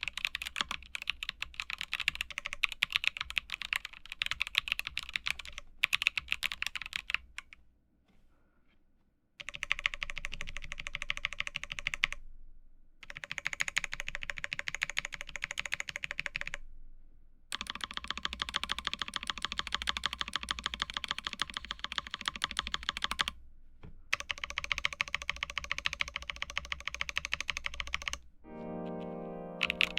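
Fast typing on a mechanical keyboard fitted with WS Heavy Tactile switches, a dense run of clacky keystrokes in several takes broken by short silent gaps. Music starts near the end.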